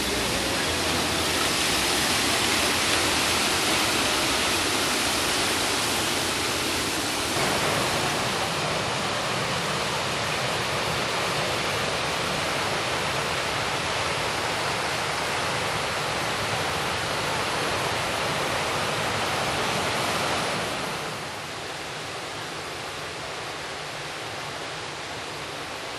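Steady rushing noise of a river breaking up in spring, with broken ice floes and meltwater moving downstream. The sound changes abruptly about seven seconds in and again about twenty-one seconds in, where it becomes quieter.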